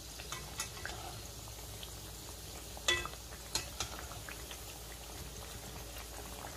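Chana dal cutlets deep-frying in a kadai of medium-hot oil: steady sizzling and bubbling with scattered pops. A metal slotted spatula clinks against the pan a few times, loudest with a short ring about three seconds in.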